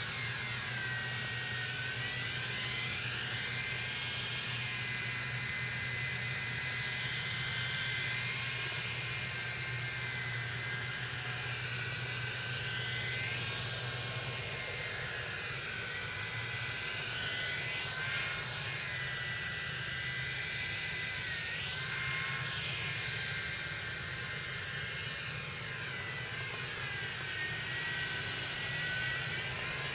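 Heli-Max Novus CX coaxial micro RC helicopter in flight: its small electric motors and rotors give a steady high whine whose pitch swoops up and down every few seconds as it manoeuvres.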